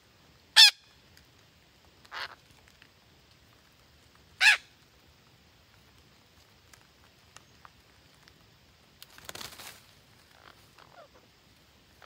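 Parakeets giving three short, harsh squawks, the first and third loud. A brief rustle follows about nine seconds in, then a few faint calls.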